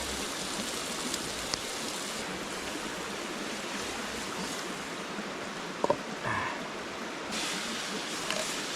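Chicken frying in honey in a pan over a campfire: a steady sizzling hiss, with a sharp click about six seconds in.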